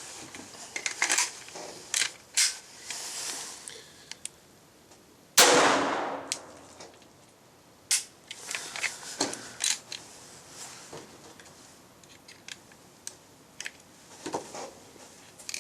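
Sharp clicks and clacks of a Glock with a Tactical Solutions .22 LR conversion kit being handled and cycled, with one loud gunshot about five seconds in that rings out for about a second.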